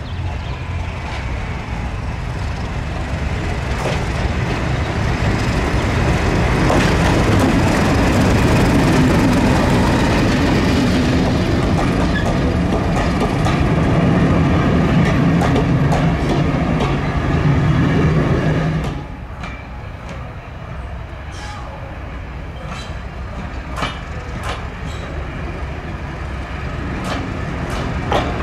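Class 31 diesel locomotive's engine running as it draws near and passes hauling a coach train, with a heavy low rumble that builds and then drops sharply about two-thirds through. After that the coaches roll by, their wheels clicking repeatedly over rail joints.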